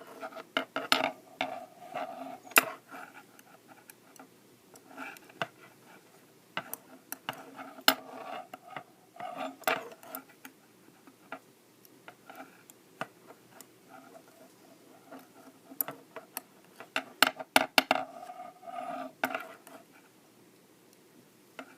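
Knitting needles clicking together and knocking against a desk while stitches are bound off, in irregular taps and clicks.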